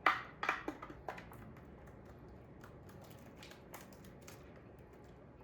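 A kitchen utensil knocking and tapping against a mixing bowl as thick cake batter is scraped out into a baking pan: three sharper knocks in the first second or so, then lighter, scattered taps.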